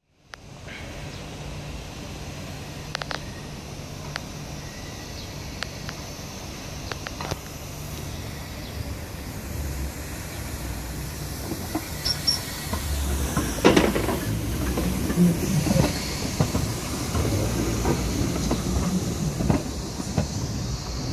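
Hong Kong Light Rail Phase IV car 1118, an electric light rail vehicle, running along depot track on a test run. It grows louder as it nears and passes, with scattered clicks and knocks from the wheels over rail joints and points, the loudest knock about two-thirds of the way through, and a brief high wheel squeal just before it.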